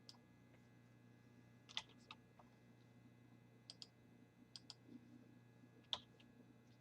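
Faint, scattered clicks of a computer mouse and keyboard, a few single and some in quick pairs, over a low steady hum.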